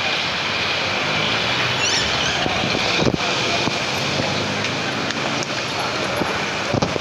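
Street traffic noise: a steady hum of motor vehicle engines, with motorcycles and cars running close by.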